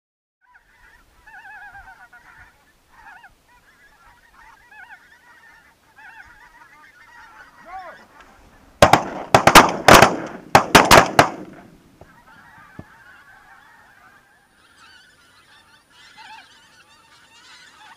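A flock of geese honking, joined about nine seconds in by a rapid volley of around six shotgun shots over two and a half seconds; the geese keep calling after the shooting.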